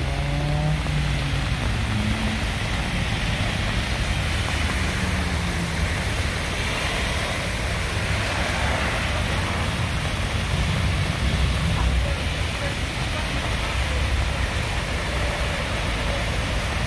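Steady rushing of rain and floodwater running across a road, over a low rumble of traffic.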